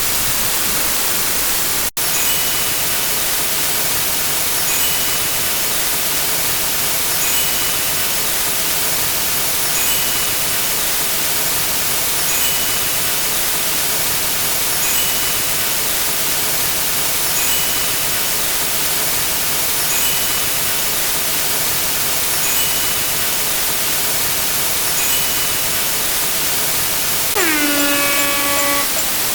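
Stacked sound effects: a steady loud hiss with a short two-tone beep repeating about every two and a half seconds, then an air horn blast near the end whose pitch dips as it starts and then holds.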